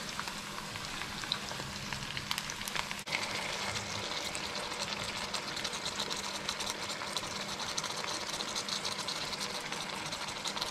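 Marinated chicken pieces sizzling in hot oil in a wok with sautéing onions: a steady frying hiss full of fine crackles, growing a little louder about three seconds in as more chicken goes in.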